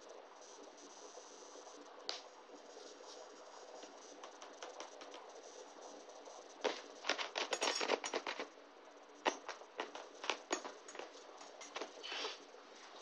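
Wire head massager's metal prongs rattling and rustling against a cat's fur in bursts of quick light clicks, densest from about seven to eight and a half seconds in, with more scattered clicks after.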